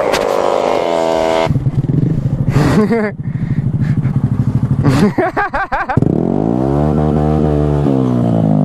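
Motorcycle engine running under the rider: its revs fall off in the first second and a half, run low and rough for a while, blip briefly about five seconds in, then climb and ease back down over the last few seconds.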